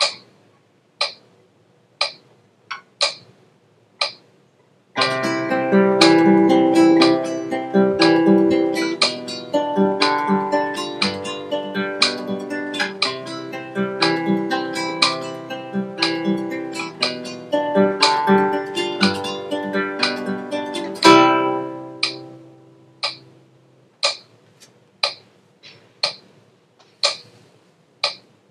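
Metronome ticking about once a second. About five seconds in, a nylon-string classical guitar comes in with a passage of plucked notes and chords, which stops around 22 seconds and rings out. The ticking carries on alone to the end.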